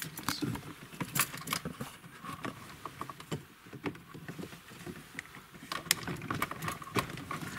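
Irregular clicks, taps and rattles of a plastic dashboard trim panel and wiring being handled and pushed into place around a car stereo.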